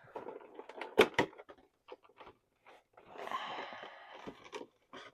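An action-figure box being opened and handled: scattered clicks and taps, two sharper knocks about a second in, then a rustle of about a second and a half from about three seconds in as the figure is drawn out.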